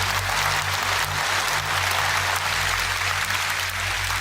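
Conference audience applauding: a dense, steady patter of many hands clapping, with a steady low hum underneath.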